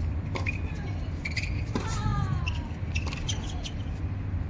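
Tennis rally on a hard court: a tennis ball struck by rackets and bouncing, sharp pops about once a second, some followed by a short falling-pitch squeak or cry, over a steady low rumble.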